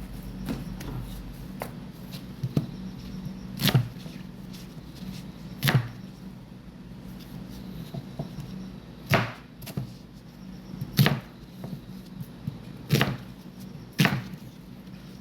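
Kitchen knife chopping on a cutting board, a sharp knock every second or two.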